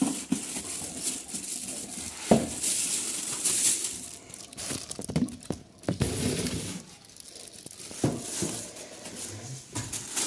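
Plastic dust bag around a car amplifier crinkling and rustling as it and the foam packing inserts are handled and lifted out of a cardboard box, with several sharp knocks from the packing being set down.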